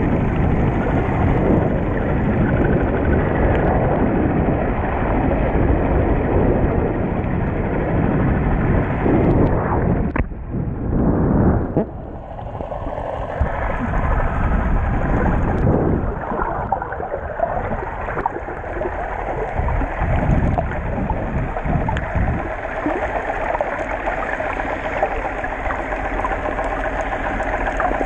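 Muffled underwater rush and rumble of water moving over a GoPro's waterproof housing while snorkeling, steady and noisy, briefly quieter about twelve seconds in.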